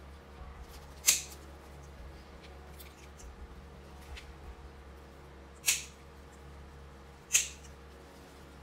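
Small pruning snips cutting through woody calamondin roots: three sharp snips, one about a second in and two more close together near the end.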